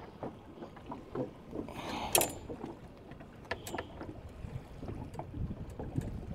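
Handling noise on a boat deck: scattered clicks, knocks and rustles as a sheepshead and fishing tackle are handled, with one sharper clatter about two seconds in.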